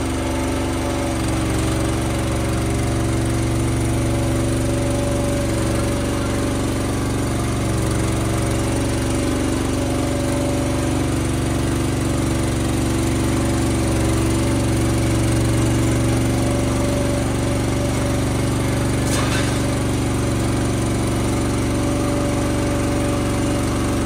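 Motor of a small motorised calf-feeding cart running steadily at an even, unchanging pitch.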